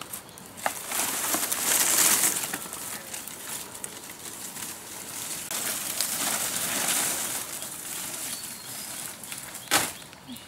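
A large dried fan-palm leaf dragged by its stem over dry leaf litter, rustling and crackling in two long surges. A single sharp snap sounds near the end.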